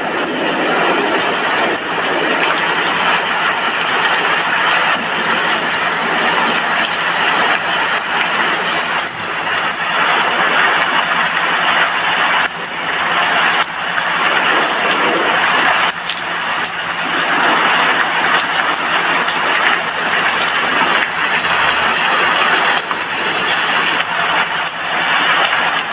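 Steady heavy rain falling, with small swells in intensity and a steady low hum underneath.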